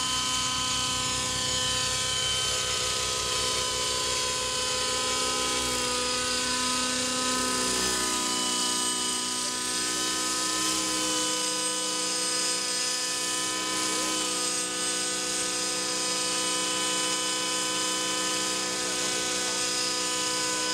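Align T-Rex 700 radio-control helicopter climbing while towing a model jet glider, its rotor and drivetrain giving a steady high whine. The low rotor beat fades after about eight seconds as the helicopter draws away.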